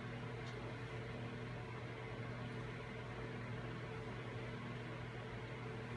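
A steady low electrical hum with faint hiss, unchanging throughout.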